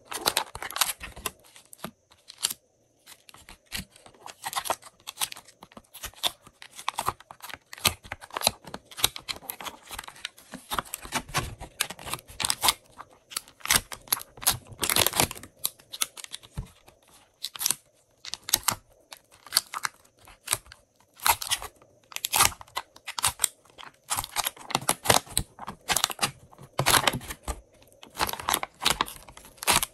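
Thin clear plastic mould tray crinkling and crackling as it is flexed by hand and soft clay pieces are pulled out of its cells. The crackles come irregularly and closely spaced.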